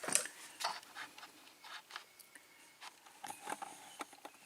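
Light, irregular clicks and taps of small metal lock-cylinder pins and parts being handled on a work surface.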